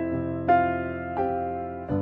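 Slow, gentle background piano music: single notes or chords struck about every 0.7 s, each ringing and fading before the next.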